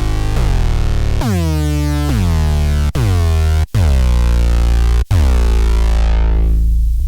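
Arturia MiniFreak polysynth playing a deep, heavy bass-synth patch: a string of notes, each opening with a sweep in tone. There are short breaks between notes about three, three and a half, and five seconds in.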